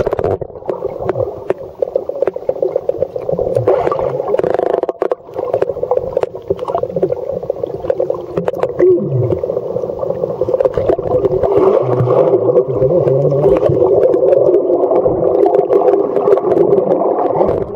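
Muffled underwater sound from a GoPro held under the surface of a river: water churning against the waterproof housing, with many scattered clicks and knocks.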